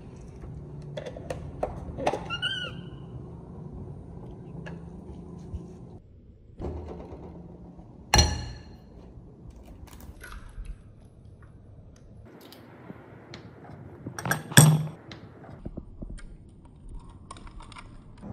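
A series of knocks, thunks and clicks from objects being handled, with two louder knocks about eight and fourteen and a half seconds in. A short wavering squeak comes about two and a half seconds in.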